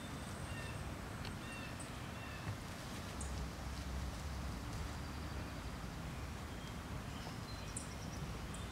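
Scattered bird chirps over a steady outdoor background hiss, with faint rustling and crackling of pine shavings being worked by hand.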